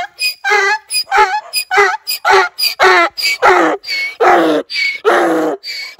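Donkey braying: a long hee-haw bray of quick alternating high and low notes, about two to three a second, with the notes growing longer in the second half.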